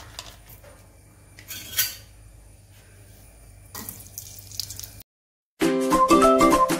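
Quiet kitchen handling noise with a brief clatter of cookware about two seconds in. After a moment of dead silence, ukulele background music starts about a second before the end and is the loudest sound.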